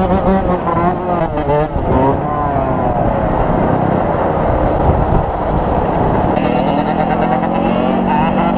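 Dirt bike engine running under road noise. Its pitch falls, then climbs slowly again as the bike slows and speeds back up.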